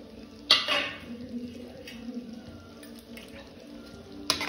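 A metal ladle knocks against a steel cooking pot about half a second in and again near the end, with the soft, wet sound of thick spinach gravy being stirred between the knocks.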